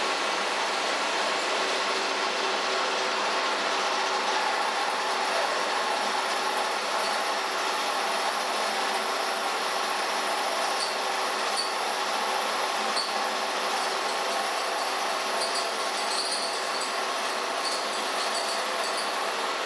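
Milling machine running while an end mill is plunged down into an aluminium block, a steady machine-and-cutting noise with a thin high whine that comes in a few seconds in and scattered small ticks later on.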